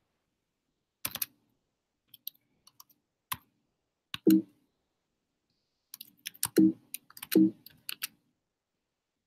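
Typing on a computer keyboard: scattered keystrokes with pauses, a few single taps in the first half and a quicker run of keys toward the end.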